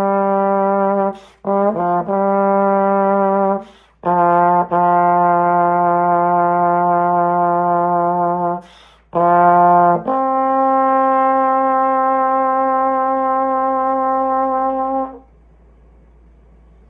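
Solo trombone playing slow, sustained notes with short breaths between phrases. It ends on a long held higher note that stops about 15 seconds in.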